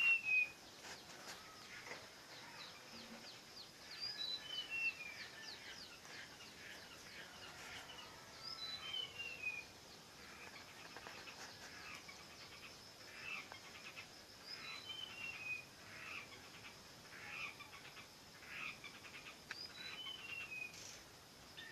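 A songbird singing a short phrase of clear notes that step down in pitch, repeated about every four to five seconds, with other birds chirping between the phrases.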